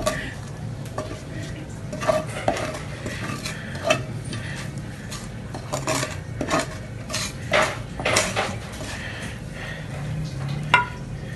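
Wooden spatula scraping and scooping fried chicken tails out of a non-stick frying pan into a glass baking dish, in irregular strokes with scattered clinks, and one sharp clink near the end.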